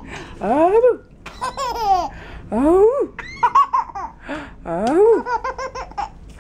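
A baby's belly laughter in three bouts, about two seconds apart, each a rising whoop breaking into quick ha-ha-ha pulses, as a blanket is swung over his face in a game of peekaboo.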